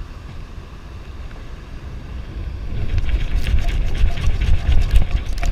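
Wind buffeting the microphone, then from about three seconds in a dense run of gritty scraping and rattling: a metal detecting sand scoop digging into and sifting beach sand to recover a target.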